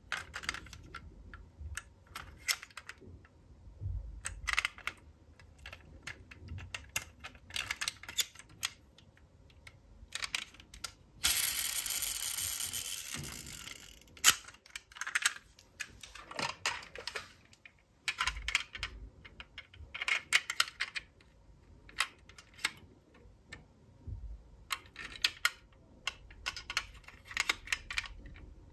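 Irregular small hard clicks and clacks of die-cast toy cars being handled, set down and knocked together. About eleven seconds in comes a few seconds of steady hiss-like noise that fades away.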